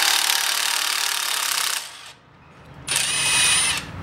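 Red cordless power tool running in two bursts as it backs out the brake-line bracket bolt beside a front brake caliper: a long run that stops about two seconds in, then a shorter one about a second later.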